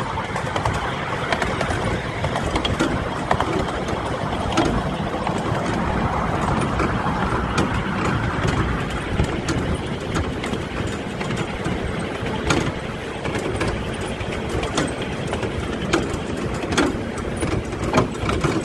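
Riding in a miniature railway carriage behind a small steam locomotive: a steady running rumble of wheels on track, with irregular sharp clicks and knocks.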